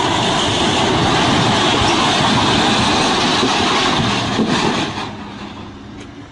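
A long concrete wall collapsing under a toppling concrete mixer truck: a loud continuous rumbling crash that fades away in the last second or so.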